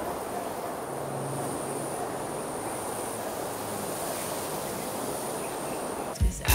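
Outdoor ambience with insects giving a thin, steady high-pitched drone over an even background hiss. Near the end it is broken by a sudden louder clink of tableware.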